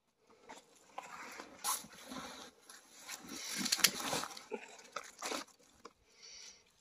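Crunching and rustling of snow and brush as a snared coyote is handled at the snare, with a few sharp clicks, the loudest a little past the middle.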